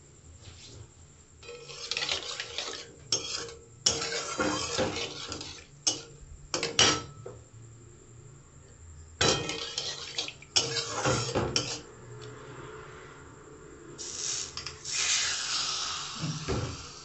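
A metal spatula scraping and stirring in a metal kadai with hot oil, in short irregular bursts. Near the end comes a steadier hiss as oil sizzles around a piece of chicken.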